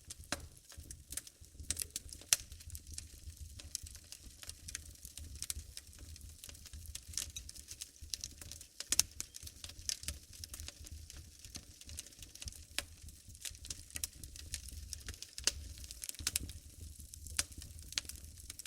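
Wood fire burning in a fireplace: irregular sharp crackles and pops over a low rumble, several louder pops scattered through.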